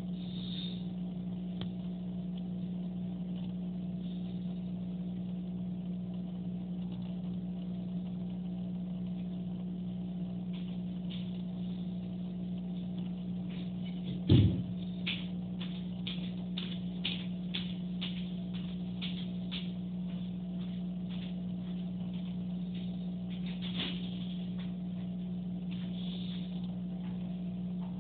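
Steady low machine hum. A single thump comes about halfway through, and scattered faint clicks run through the second half.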